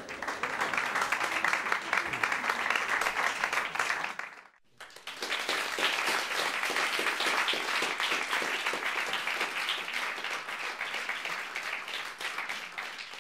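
Applause: many hands clapping in a dense patter. It breaks off abruptly about four and a half seconds in, then resumes.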